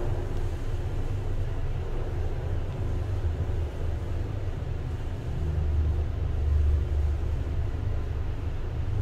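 A 1980s Hitachi lift travelling between floors: a steady low rumble of the car running in its shaft, getting a little louder for a couple of seconds past the middle.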